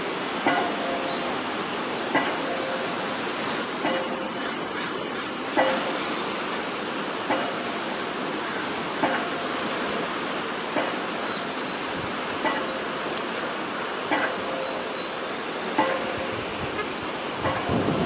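Rail-mounted pile driver hammering a pile: about eleven evenly spaced blows, roughly one every 1.7 seconds, each a sharp clang with a brief metallic ring, over a steady rushing background.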